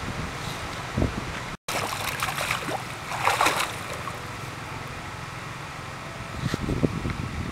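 Macaque monkeys splashing in shallow moat water, with short splashy bursts about two and three seconds in, over steady outdoor wind and hum. The sound drops out for a split second about one and a half seconds in.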